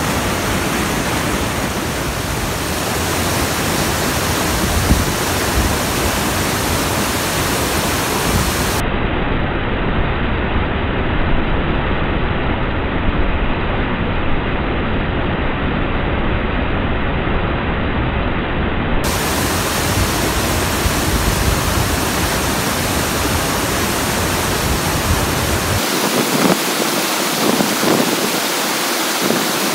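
A mountain-creek waterfall in heavy flow, swollen by days of rain: a steady, loud rush of falling water, with white water tumbling over boulders.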